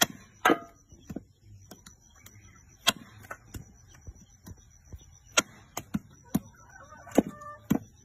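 Heavy cleaver chopping raw ribs on a wooden chopping block: about a dozen sharp, unevenly spaced chops.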